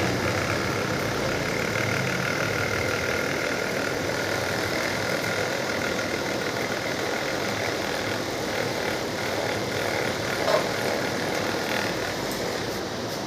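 Steady mechanical hum, with one brief knock about ten and a half seconds in.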